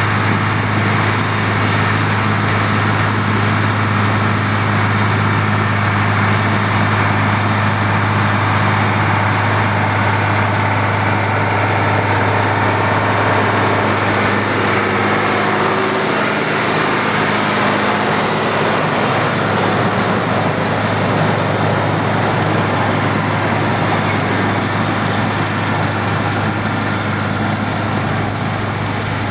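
International 966 tractor engine running steadily under load while pulling a New Holland 1465 haybine mower-conditioner cutting alfalfa. The sound eases slightly near the end as the rig moves away.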